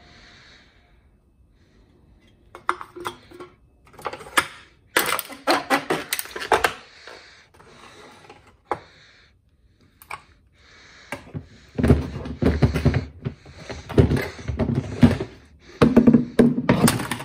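Wall-mounted McKay can crusher being worked: the metal lever clanks and aluminium cans are crushed and knock out of the bottom slot, in several bursts of clattering separated by short pauses.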